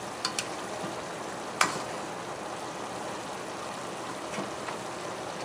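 Pot of pork menudo stew simmering on the stove with a steady bubbling hiss, while a plastic spoon stirs it, giving a few clicks against the pot; the sharpest click comes about one and a half seconds in.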